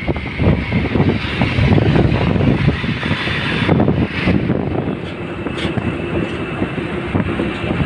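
Wind buffeting the microphone on a moving motorcycle, over the bike's engine and road noise. About five seconds in the buffeting eases into a steadier hum with a faint whine.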